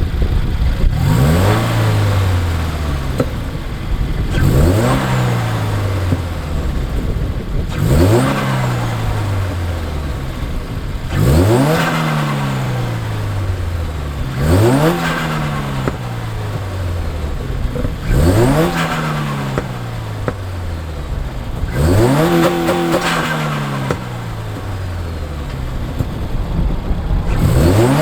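Turbocharged Subaru WRX flat-four engine revved about eight times in a row, every three to four seconds: each rev climbs quickly and falls away slowly. A flutter from the aftermarket Boomba bypass valve comes as the throttle lifts at the top of each rev.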